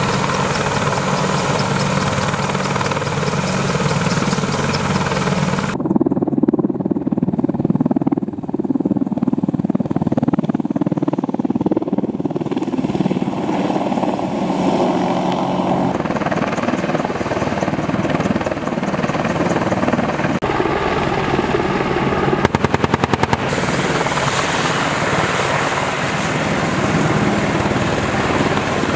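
AH-64E Apache attack helicopter running, its twin turboshaft engines and main rotor steady but changing abruptly in character several times. About two-thirds of the way through comes a rapid burst of about a dozen sharp bangs lasting roughly a second.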